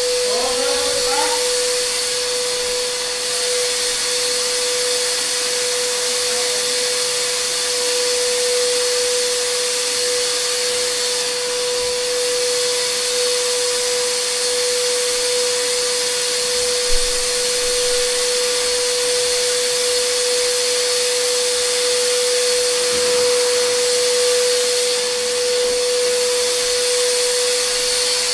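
An electric motor running steadily, with a whirring hiss and a constant high whine, and one short knock about two-thirds of the way through.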